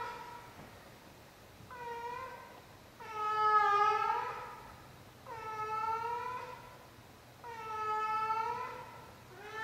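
An elderly calico cat giving long, drawn-out yowls, four about two seconds apart, with a fifth starting near the end. This repeated yowling is the old cat's nightly performance, which her owner puts down to dementia.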